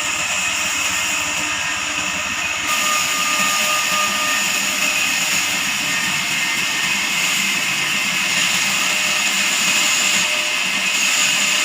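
Band sawmill cutting through a log: a loud, steady, high-pitched hiss and whine from the running blade in the wood.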